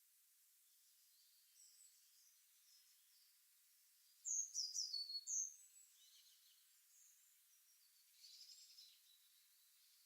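Songbirds singing against a quiet background: a short, bright phrase of high chirps about four seconds in, faint distant calls around it, and a quieter rapid trill near the end.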